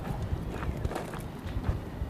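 Footsteps on gravel: an uneven run of short, low thumps with small clicks, along with handling noise from a handheld camera.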